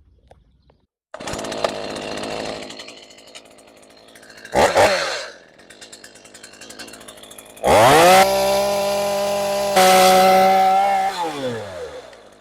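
Stihl MS 212 two-stroke chainsaw running. It comes in about a second in and settles to idle, gets a short blip of throttle, then is revved high for about three seconds before dropping back to idle.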